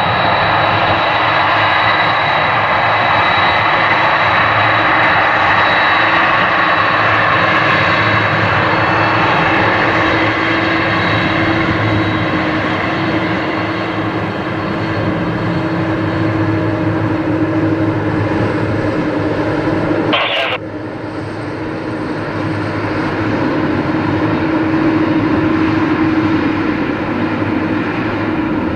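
Boeing 747-400's four General Electric CF6 turbofans running loud as the jet moves along the runway, a high fan whine fading over the first ten seconds. A short crackle about twenty seconds in.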